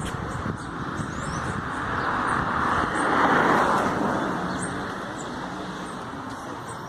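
A vehicle passing by: a steady rushing noise that swells to its loudest about three seconds in and then fades. Birds chirp throughout.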